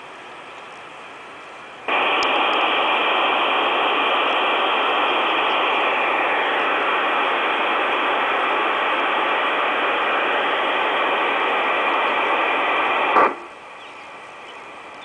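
Sound system of an Aristo-Craft Pacific model steam locomotive playing a loud, steady steam hiss through its onboard speaker. The hiss starts suddenly about two seconds in and cuts off abruptly near the end.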